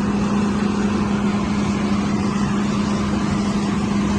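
Combine harvester running steadily with its corn header engaged, cutting corn: a constant engine drone with an unbroken hum.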